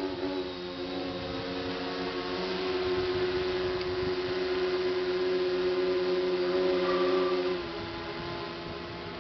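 Small model aircraft flying overhead, its motor and propeller giving a steady pitched hum that swells louder, then drops off suddenly near the end.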